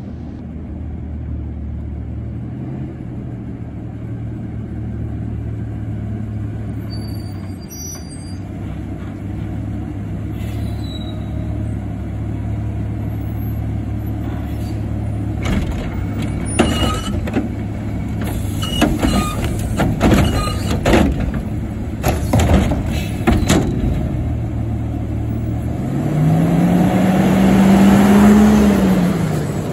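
Diesel automated side-loader garbage truck drawing up and stopping: a steady engine drone, then a run of sharp air-brake hisses and clanks midway. Near the end the engine revs up and back down twice.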